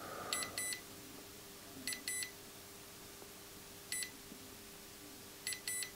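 Short, high electronic beeps, mostly in pairs, a pair about every one and a half to two seconds, over a faint steady hum.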